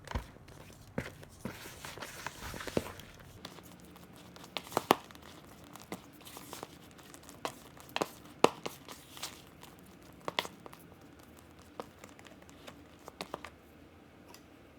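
Hands kneading sticky naan dough in a bowl: irregular soft slaps, knocks and tearing, squelching sounds as the dough is pulled and pressed.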